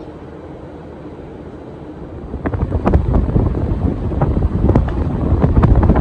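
50-inch Casablanca Delta II ceiling fan running with a steady low whoosh. About two seconds in its airflow starts buffeting the microphone: a much louder, gusty low rumble with irregular pops.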